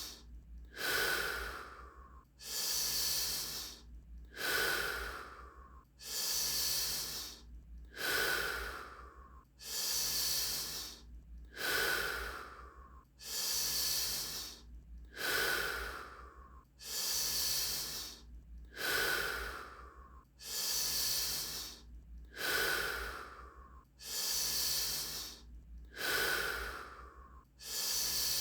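Deep, rapid Wim Hof power breathing: a full breath in and a shorter breath out, repeated evenly about once every two seconds.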